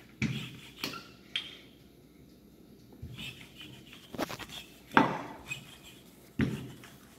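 Wooden rolling pin rolling out dough on a stone countertop, with irregular knocks as it bumps and is set against the stone. The loudest knock comes about five seconds in.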